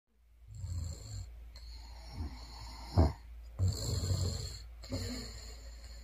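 A woman snoring: low snores drawn out over long breaths, with one short, much louder snort about three seconds in.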